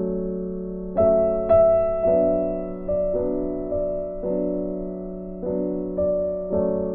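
Background piano music: slow sustained chords, with a new note or chord struck about every half second to a second and each fading away.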